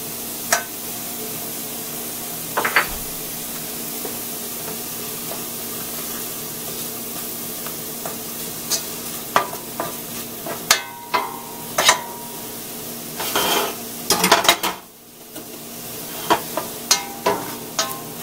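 Chopped onion and garlic sizzling in butter in a stainless steel frying pan, with a plastic spoon scraping and knocking against the pan as they are stirred; the scrapes come more often in the second half.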